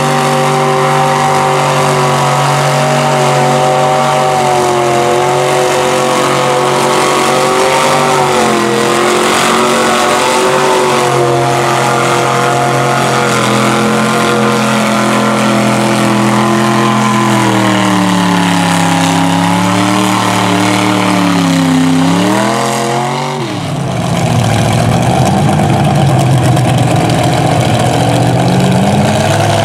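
Mega mud truck's engine revving hard as the truck churns through a deep mud pit, its tires slinging mud. The engine holds high revs at first, then its pitch swings up and down several times as the throttle is worked, dips briefly about three quarters of the way through, and comes back rougher and lower.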